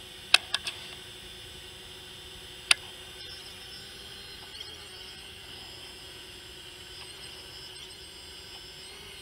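Steady hum and hiss of a FIMI X8 quadcopter's propellers holding in the air. A few sharp clicks come in the first second, and one more about three seconds in.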